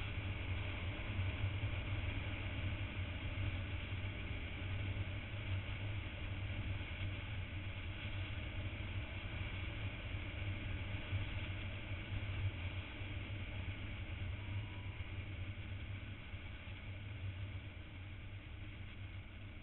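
Steady low rumble of engine, road and wind noise from a motorcycle riding along a winding road, easing off slightly near the end.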